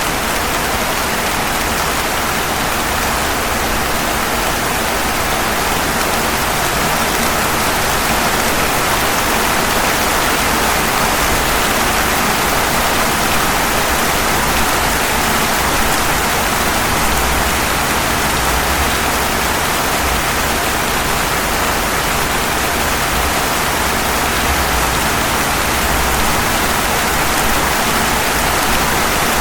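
Steady rain falling on pavement: an even, unbroken hiss with a low rumble underneath.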